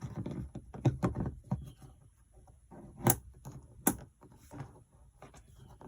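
Sharp clicks and knocks of a rocker switch being pushed and seated into a Carling-style switch adapter bracket in a UTV dash panel, the two loudest about three and four seconds in.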